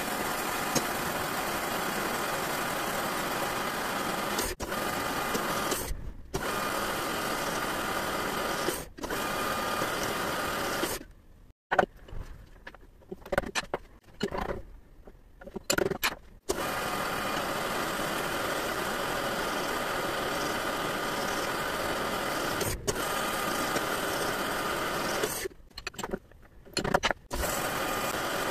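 Lathe running with a steady mechanical drone. The sound cuts off abruptly several times, and through the middle there is a stretch of scattered clicks and knocks before the running resumes.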